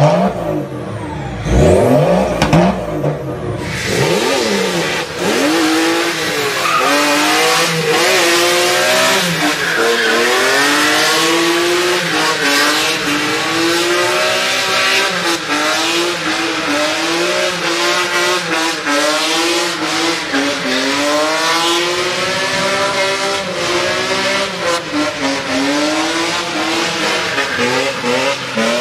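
A BMW E46 330d revving briefly, then a BMW E46 drifting: its engine revs rise and fall again and again over a steady squeal of spinning tyres.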